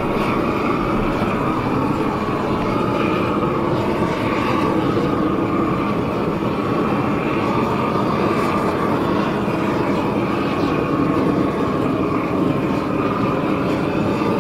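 Propane torch on a hose burning steadily with an even, jet-like rush as its flame chars the face of a sheet of plywood.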